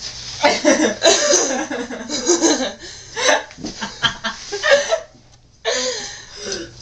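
Girls laughing in several bursts, with a short pause about five seconds in before another burst of laughter.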